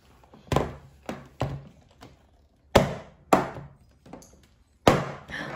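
Plastic toy figures, a Godzilla and a Jurassic World Carnotaurus, banged and stomped onto a table: about six sharp knocks at uneven intervals.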